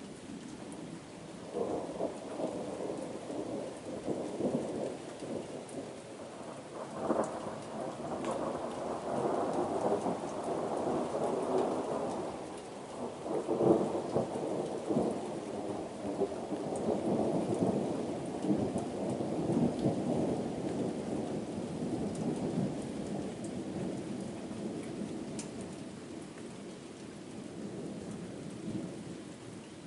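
Thunder rumbling and rolling for most of the time, with sharper cracks about a quarter of the way in and near the middle, the middle one the loudest, then easing off near the end. Steady rain falls underneath.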